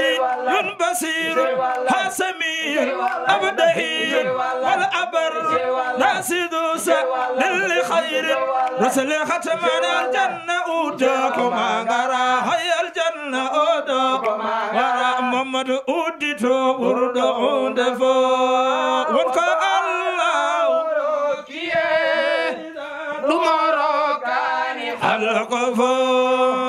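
Men's voices singing an unaccompanied Islamic devotional chant together, with no instruments. It ends on a long held note.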